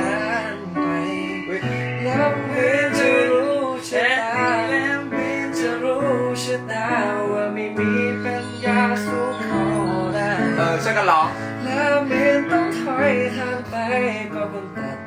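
A man singing a Thai pop ballad over chords played on a Casio electronic keyboard.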